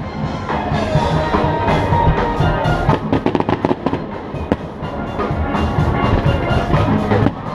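Aerial fireworks shells bursting with repeated sharp bangs, over music with a steady beat.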